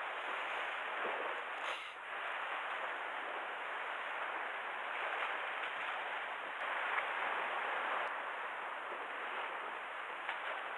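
Steady outdoor background hiss at the shore, with a few faint ticks.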